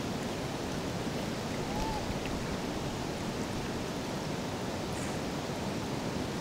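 Steady rush of water pouring over the fish weir and falls. A faint short rising-and-falling note sounds about two seconds in.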